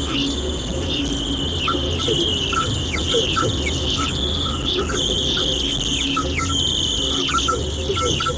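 A radio giving out an unidentified signal: a steady high-pitched buzz broken by many quick falling chirps and short blips, over a low hum.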